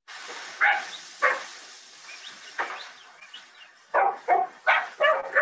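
Young kelpie puppies barking as they work a few sheep: single barks spread out at first, then a quick run of barks in the last second and a half.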